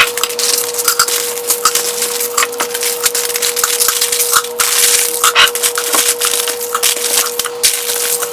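Crinkling plastic candy and snack wrappers, with rapid irregular clicks and rustles, as a pile of wrapped Halloween candy is handled and poured into a container. A steady faint hum runs underneath.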